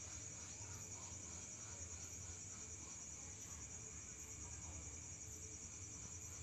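Faint, steady, high-pitched trill of night insects, with a low hum underneath.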